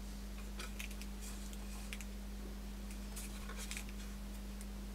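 Faint clicks and light taps of a small camera on a plastic mounting base being handled and turned in the hands, over a steady low electrical hum.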